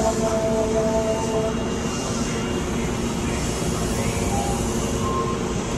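Steady hum and rush of an Osaka Metro subway train standing at the platform with its doors open, under the station's ambience. A few held chime tones end about a second and a half in.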